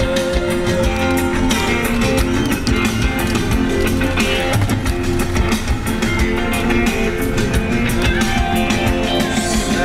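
Background music: a guitar-driven song with a drum beat.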